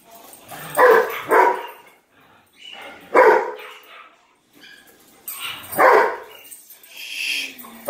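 Dogs barking while they play-wrestle: two barks in quick succession about a second in, then single barks about three and six seconds in, and a fainter one near the end.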